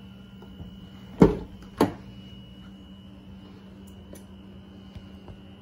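Car driver door being opened: a sharp latch clunk about a second in, then a lighter clunk about half a second later, over a faint steady hum.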